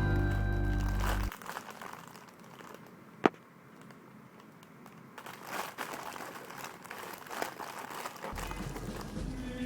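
Crinkling, rustling handling noise with one sharp click about three seconds in. Background music plays at the start, cuts out about a second in, and comes back near the end.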